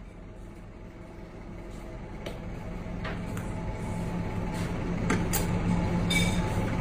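A low steady hum that grows louder, with a few faint clicks and taps of a knife working on a plastic cutting board while mackerel are filleted.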